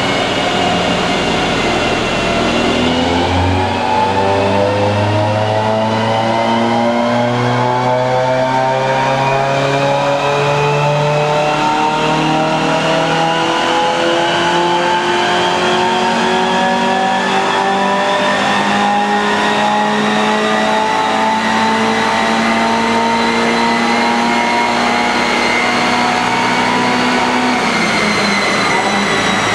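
1991 Honda CRX's 1.6-litre four-cylinder engine on a chassis dynamometer: the revs sag over the first couple of seconds, then climb slowly and steadily under load for about 25 seconds, and drop off near the end as the throttle is released. A higher whine from the dyno rollers and tyres rises along with it.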